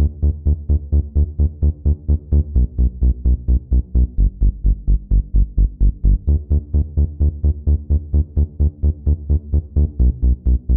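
Electronic intro music with a quick, even pulsing beat, heavy in the bass.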